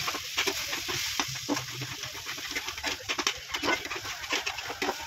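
Metal spatula stirring and scraping frying onion-and-spice masala in a metal kadhai, with quick irregular scrapes and clicks over the steady hiss of the masala sizzling in oil and a little water as it is fried down.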